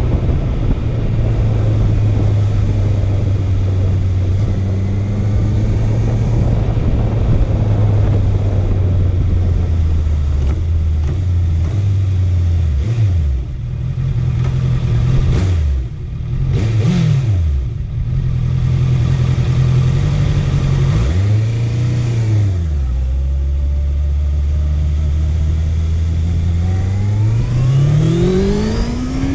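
Honda CB650F inline-four motorcycle engine under way. It holds steady revs, then falls and rises in pitch several times through gear changes and throttle blips. It settles at low revs, then climbs steadily as the bike accelerates near the end, with road and wind noise underneath.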